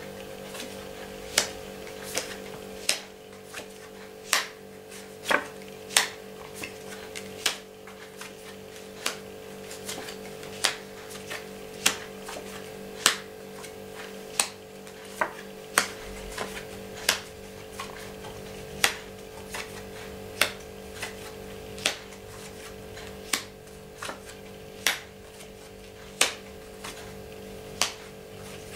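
Playing cards being dealt one at a time from the deck onto a cloth-covered table, a sharp click with each card, a little more than one a second.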